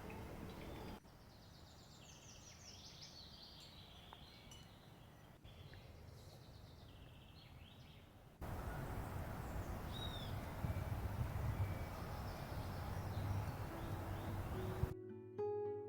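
Small birds chirping and singing against a quiet background. After a cut comes a louder, steady low rumbling noise with an occasional chirp, and acoustic guitar music begins just before the end.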